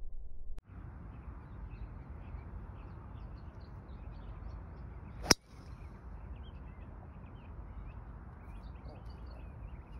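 Golf driver striking a teed ball once, a single sharp crack about five seconds in, over a steady low rumble of wind with birds chirping.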